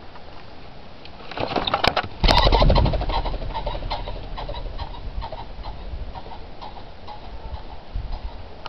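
Released pheasants taking off in a whirr of rapid wingbeats, starting about a second and a half in. They are loudest just after two seconds, where a heavy low thump comes in, then fade over the following few seconds.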